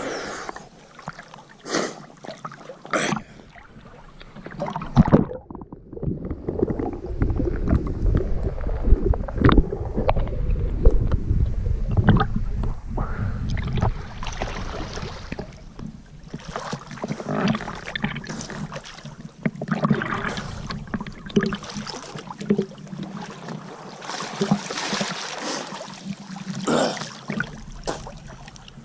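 Catamaran under way at sea: water rushing and splashing along the hulls, with an uneven low rumble from wind on the microphone about a third of the way in.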